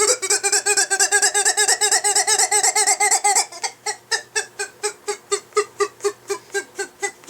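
Squeaking back scratcher squeezed over and over in quick rhythm, about six high squeaks a second. After about three seconds the squeaks turn shorter and more clipped, with small gaps between them.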